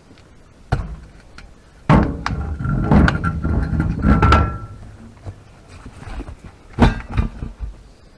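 Heavy metal clanks and thuds from taking off a punctured wheel and handling tools: one knock, then a run of clattering about two seconds in with a short metallic ring, and two more sharp knocks near the end.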